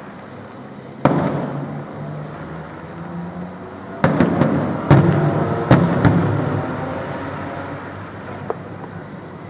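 Aerial firework shells bursting: one loud bang about a second in, then four more in quick succession between about four and six seconds, and a faint one near the end. Each boom rolls away in a long rumbling echo.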